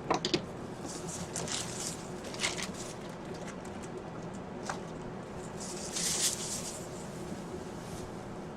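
Intermittent crinkly rustling and a few light clicks, like ingredients and packaging being handled, with a sharp knock at the very start, over a steady low hum.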